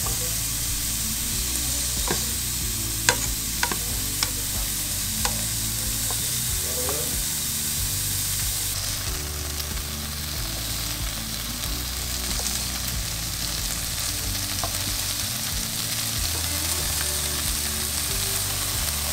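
Sand tilefish fillets sizzling steadily in a nonstick frying pan. A few sharp clicks in the first five seconds, from tongs against the pan as the fillets are turned.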